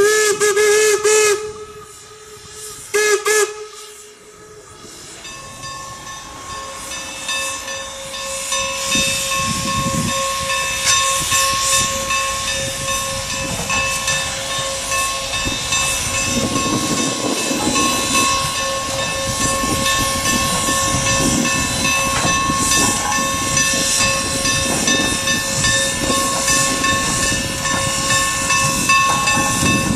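Whistle of the Norfolk & Western 4-8-0 steam locomotive No. 475: a long blast ending about a second and a half in, then a short blast about 3 s in. After that the working locomotive grows louder as it draws closer, a steady hiss of steam with a faint steady tone in it.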